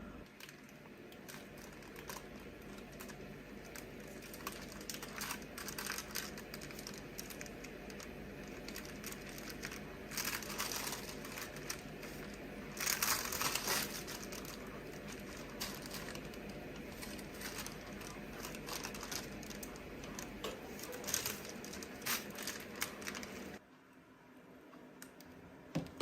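Continuous crackling and rustling made of many small clicks, louder for a few seconds around the middle, cutting off abruptly near the end.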